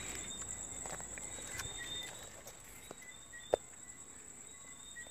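Crickets chirping steadily in the background, with a few faint handling clicks and one sharp click about three and a half seconds in.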